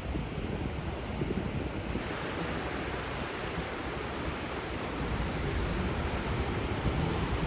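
Wind and sea water rushing past a moving coastal ferry, a steady noise that grows brighter about two seconds in.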